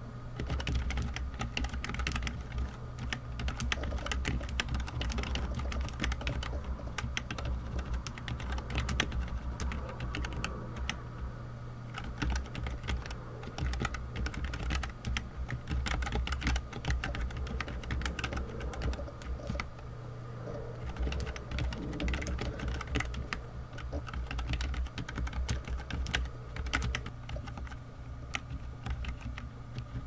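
Typing at a medium pace on a Keychron K3 low-profile keyboard fitted with freshly lubed red optical switches: a dense, continuous run of keystroke clicks.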